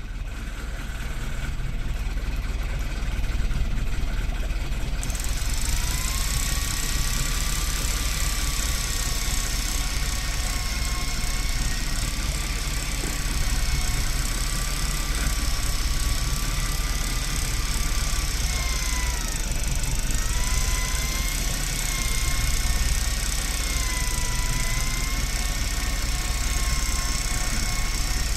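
Command X-8 electric fishing reel's motor whining as it winds line, its pitch wavering up and down with the load, starting about five seconds in. A steady low rumble runs underneath.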